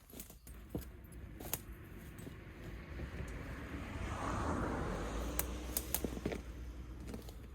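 A vehicle passing by: a rushing noise over a low rumble swells up about halfway through and fades again, with a few sharp clicks and taps.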